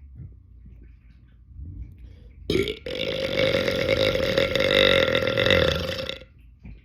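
A person belching on purpose: a short burp about two and a half seconds in, then one long belch held at a steady pitch for over three seconds before cutting off.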